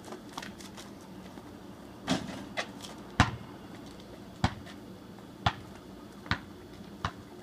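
Basketball being dribbled on asphalt: single sharp bounces, about six of them roughly a second apart, starting about two seconds in.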